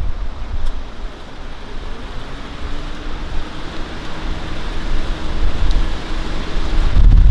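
A steady outdoor hiss with a faint engine hum that rises slightly in pitch, as of a vehicle passing, while wind rumbles on the microphone at the start and again near the end.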